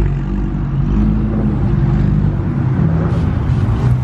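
Porsche 911 GT3's flat-six engine running at low revs as the car rolls slowly past, a steady low engine note.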